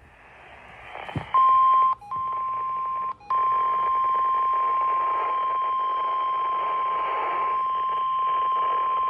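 NOAA Weather Radio's 1050 Hz warning alarm tone over radio static: after a click about a second in, one steady high beep sounds, breaks off twice briefly in its first two seconds, then holds unbroken. It signals that an emergency warning broadcast is about to follow.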